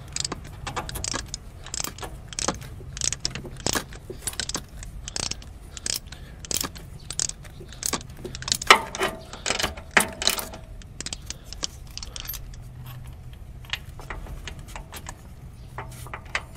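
Socket ratchet clicking in short runs as a spark plug is worked loose with a 16 mm plug socket on an extension, with metal clinks of the socket and extension. The clicking is dense for about the first eleven seconds, then thins to scattered clicks.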